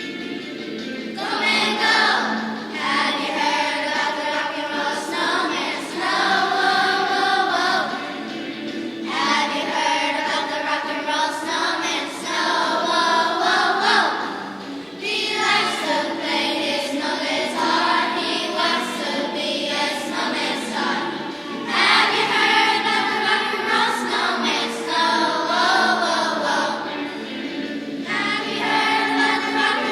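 Elementary school children's choir singing a seasonal song in phrases of about six seconds, with short breaks between them. A steady accompaniment carries on underneath.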